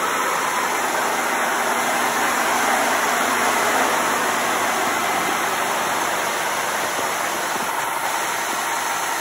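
1996 Ford F-150 engine idling, heard close up under the open hood as a steady, even rushing sound.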